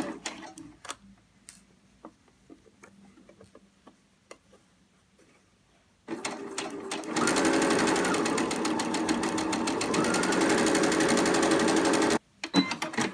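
Electric sewing machine sewing a blind hem stitch with the blind hem foot. After several seconds of soft taps from fabric handling, the machine starts about six seconds in, runs fast and steady for about five seconds, and stops suddenly, followed by a few clicks.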